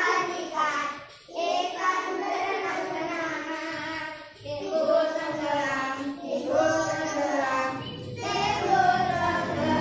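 A group of young children singing a children's song together along with a recorded song from a laptop, in phrases broken by short pauses.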